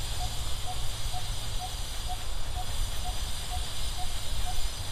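Outdoor background: a steady hiss with an uneven low rumble, and a short pitched note repeating evenly about twice a second.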